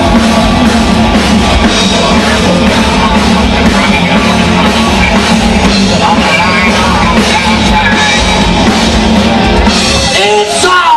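Live rock band playing loud, with distorted electric guitar and drums, heard from within the crowd. The bass and drums drop out just before the end.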